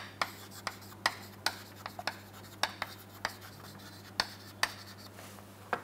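Chalk writing on a chalkboard: about a dozen short, sharp taps with light scratching as the letters are written.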